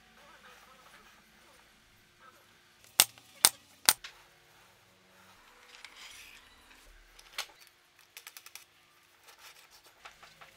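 Sharp knocks and clicks of plywood parts and metal hardware being handled and set in place on a crosscut sled jig with an aluminium T-track: three loud knocks in quick succession about three seconds in, a single click past seven seconds, then a quick run of light ticks.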